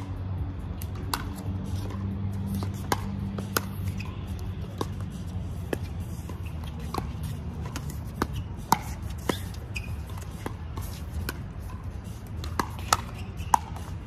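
Pickleball paddles striking a hard plastic ball: an irregular series of sharp pocks through a rally, some louder and some fainter, over a steady low background.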